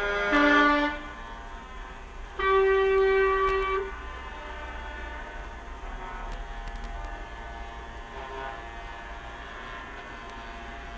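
Truck air horns sounding as a column of lorries drives past: a chord that drops to a lower note and stops about a second in, then one long, loud, steady blast from about two and a half seconds to nearly four seconds. A low rumble of the passing truck engines runs underneath.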